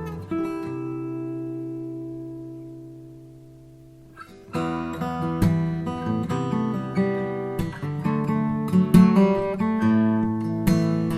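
Solo fingerstyle acoustic guitar. A chord rings out and slowly fades for about four seconds, then the playing resumes with quick plucked melody notes over a bass line.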